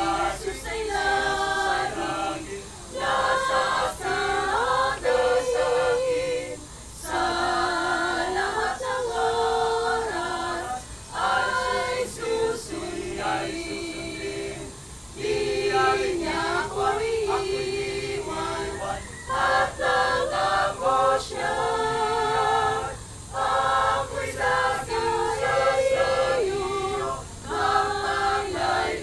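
Mixed choir of men's and women's voices singing a hymn a cappella, in phrases of a few seconds with short breaks between them.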